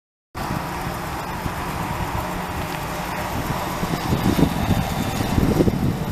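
A 2008 GMC Sierra 2500HD pickup's 6.0L gas V8 running steadily, with a few louder low rumbles about two-thirds of the way through.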